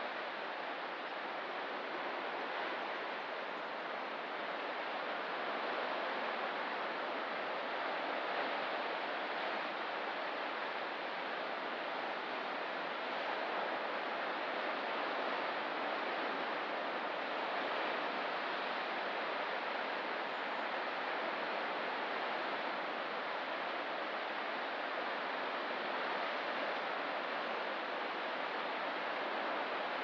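Pacific Ocean surf washing steadily against the shore, a continuous hiss of breaking water that swells and eases only slightly.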